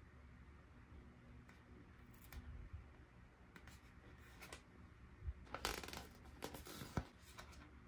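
Hands handling small plastic toy pieces and packaging: scattered light ticks, then a short run of rustling and crackling in the second half, with one sharper click near the end.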